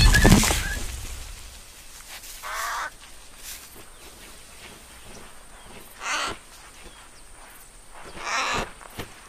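A loud thud right at the start that dies away within about a second, then three short, rough caw-like calls of a cartoon bird, spread a few seconds apart.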